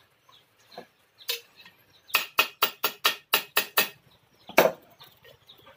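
Hand hammer striking a steel rubber-tapping knife blade on an anvil, ringing metal on metal. There is a single blow, then a quick run of about eight evenly spaced blows, then one more.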